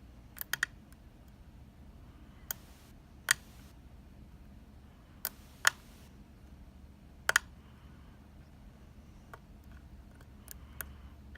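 A Peterson #1 hook pick working the pin tumblers inside a Talon oval lock cylinder: about a dozen sharp, irregular metallic clicks, the loudest about a third and halfway through, as pins set and the core takes a little rotation.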